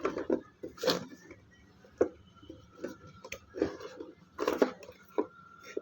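Handling noise: a series of irregular clicks and rustles, several seconds apart, from something being handled close to the microphone.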